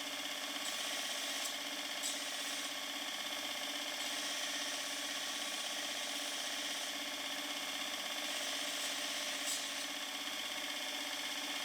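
Belt grinder running steadily while the steel pruning chisel is ground and sharpened on the belt.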